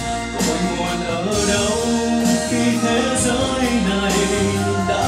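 Orchestral music with a sung melody: a voice holding long notes over strings and a bass line that moves from note to note.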